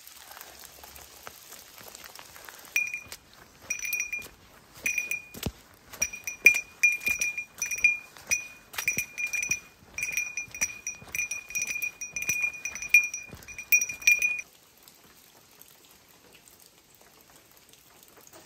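A small metal bell, such as a hiker's bear bell, jingling with each step while walking. It starts about three seconds in and stops abruptly about fourteen seconds in, with faint rain hiss around it.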